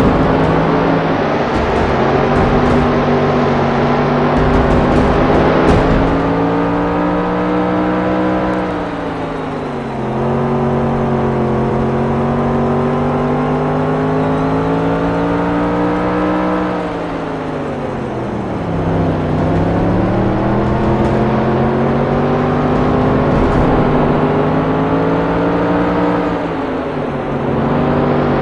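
Dirt-track race car engine running hard. Its pitch climbs slowly, then drops sharply three times, about every nine seconds, as the throttle comes off and goes back on.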